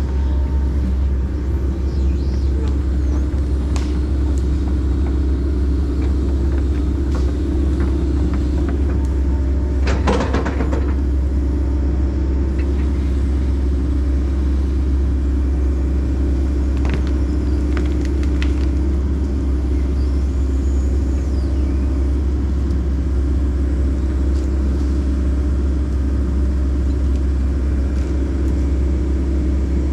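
Excavator diesel engine running steadily, with a constant deep rumble, and a few scattered knocks, the loudest about ten seconds in.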